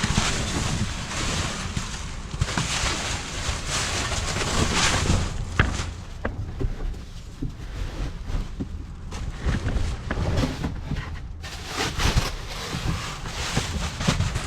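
Wind buffeting the microphone: a rumble and hiss that keep surging and fading, with a few light knocks.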